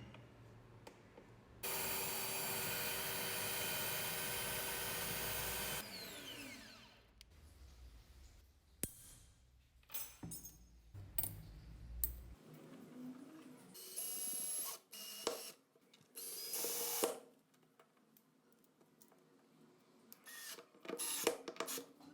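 A small power tool's electric motor runs steadily for about four seconds, then winds down. It is followed by scattered clicks and knocks and two short bursts of noise.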